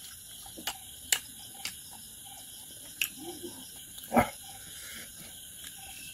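Eating sounds of a man chewing with his mouth open: a handful of sharp lip smacks and clicks, then one louder, deeper smack or thud about four seconds in.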